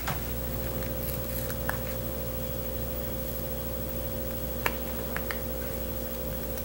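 Steady low electrical hum with a few faint ticks, the clearest about two-thirds of the way in, from a metal pick and a stencil mask being peeled off vinyl upholstery.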